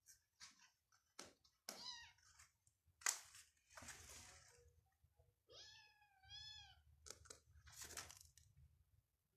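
Persian kittens playing in a litter tray: short bursts of litter scratching and shuffling, with a kitten mewing about two seconds in and twice more around six seconds in.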